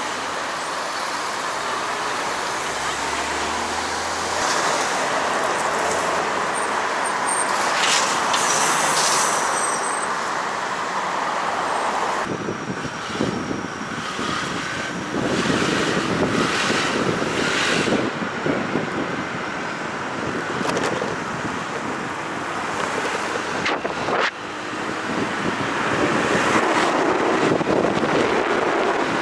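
Road traffic noise with wind on the microphone while riding through city streets. The sound changes abruptly about 12 and 24 seconds in.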